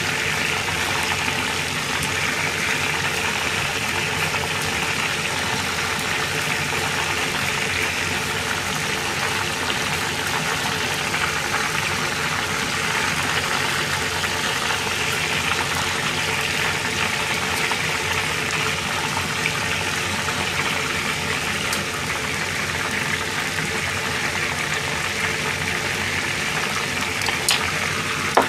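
Steady sizzling hiss of oil deep-frying, swelling and easing slowly, over a low hum. A couple of faint clicks near the end.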